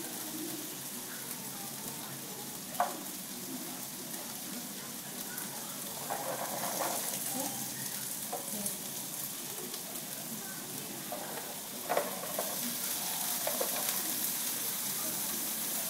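Food sizzling in a frying pan while a spatula stirs and scrapes it, with two sharp taps of the utensil on the pan. The sizzle gets louder near the end.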